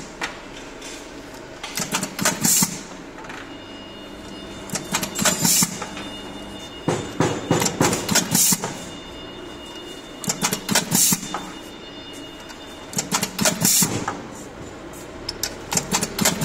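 O-ring assembly machine cycling: about every three seconds a short cluster of sharp mechanical clacks with a hiss, over a steady hum between cycles.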